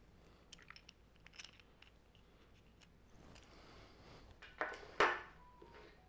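Small hard parts being handled: scattered light clicks and taps, then two louder clattering knocks about four and a half and five seconds in.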